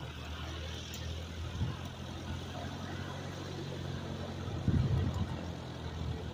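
Steady drone of the radial engines of two Boeing PT-17 Stearman biplanes in the distance, heard as a low hum of several even tones. Brief low buffets come about a second and a half in and again near five seconds in.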